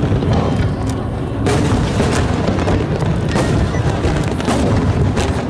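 Aerial firework shells bursting overhead in a rapid run of booms and crackles over a continuous low rumble, growing denser about a second and a half in.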